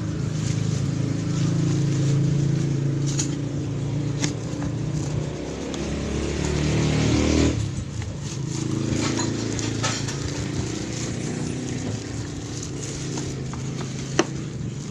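Hands rustling and crinkling plastic wrap and cardboard packaging while unwrapping a glass cup, with a sharp tap near the end. Under it runs a steady engine hum that swells and rises in pitch about seven seconds in.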